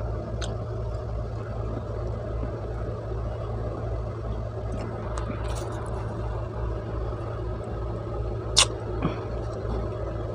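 A steady low hum with a pulsing rumble underneath, with one sharp click about eight and a half seconds in.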